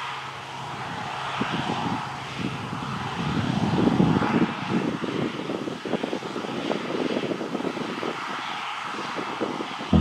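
New Holland CX8040 combine harvester running as it cuts wheat: a steady mechanical drone that grows louder about four seconds in, then eases back.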